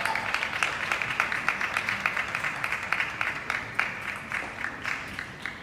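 Arena crowd applauding at the end of a table tennis rally: a dense run of quick, sharp claps that dies away near the end.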